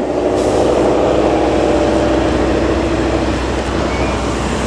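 Steady engine rumble with a pitched drone that fades about three and a half seconds in.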